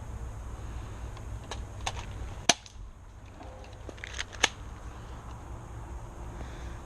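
Airsoft pistol shots: about five sharp snaps in two clusters. The loudest comes about two and a half seconds in, and another strong one a little before the end of the cluster near four and a half seconds.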